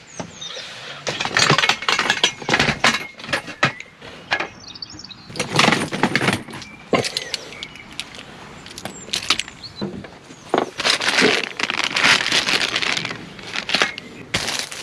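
Aluminium antenna tripod and a coil of coax cable being handled and carried: repeated clinks, knocks and rattles of the metal legs, with bursts of rustling between them.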